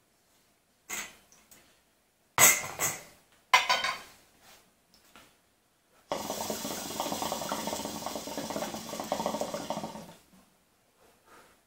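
Metal tongs clinking a few times against the hookah bowl as a small piece of charcoal is added. Then, from about six seconds in, the water in the hookah's base bubbles steadily for about four seconds as smoke is drawn through the hose.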